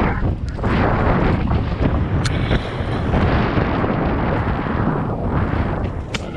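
Wind rushing and buffeting on the microphone with rumbling trail noise from a mountain bike riding down a dirt trail, and two sharp knocks, about two seconds in and near the end.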